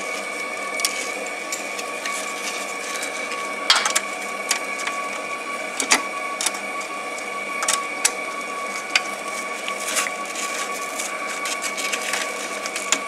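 Scattered sharp metal clicks and knocks of a hand tool working a bolt on a bracket, over a steady two-tone electrical whine.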